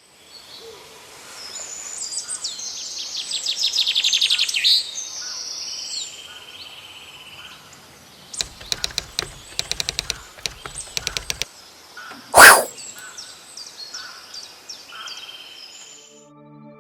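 Songbirds singing and chirping in repeated trilled phrases. A run of sharp clicks comes about halfway, then one short loud burst of noise; the birdsong cuts off suddenly near the end.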